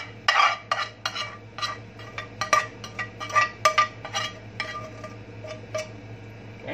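Spoon clinking and scraping against a metal pan while pot pie filling is pushed back to the center, in a quick run of strokes that thins out near the end.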